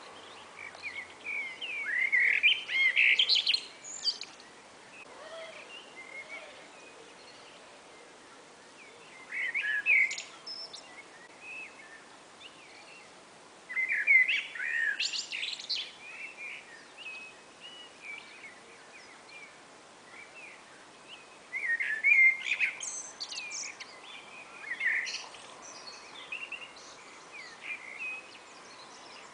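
Two blackbirds singing back and forth: about five warbled phrases of a second or two each, ending in higher twittering notes, with pauses of several seconds between them.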